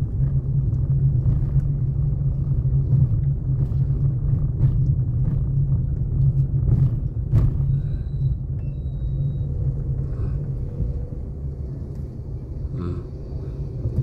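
Steady low rumble of a vehicle's engine and road noise while driving slowly through street traffic, with scattered light clicks and knocks.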